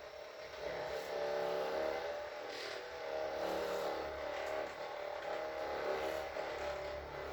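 Small electric motor running with a steady whir that grows louder about a second in, its pitch wavering slightly.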